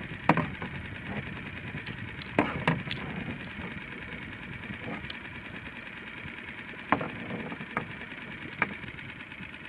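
Several sharp knocks and clicks on a small fibreglass boat as fishing line and gear are handled at the gunwale: one near the start, two close together a couple of seconds in, and three more near the end, over a steady background hum.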